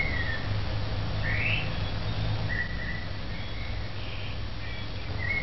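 Birds chirping: short calls about a second apart, one falling and one sweeping upward, over a steady low hum.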